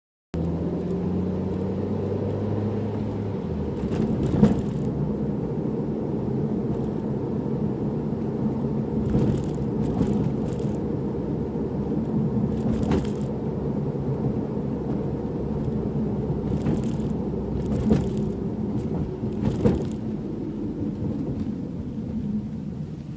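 Road and engine noise inside a moving car's cabin: a steady low rumble, broken by a handful of sharp clicks and knocks as the car goes over bumps and joints.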